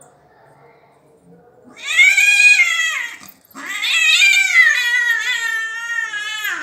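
A cat giving two long, loud meows. The first comes about two seconds in; the second is longer, wavering and slowly falling in pitch.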